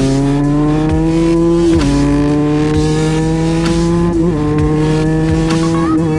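50cc two-stroke motorbike engine pulling hard under acceleration, its pitch climbing and then dropping sharply about two seconds in and again about four seconds in as it shifts up through the gears.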